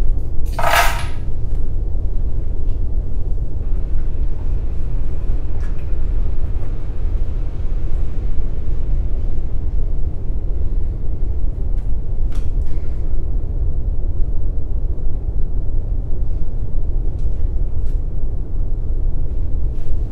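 A steady low rumble, with one sharp metallic clink that rings briefly about a second in and a few faint clicks later.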